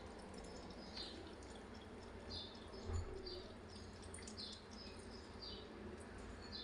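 Short high chirps, each falling slightly in pitch, repeating about once a second, with a single dull thump about three seconds in.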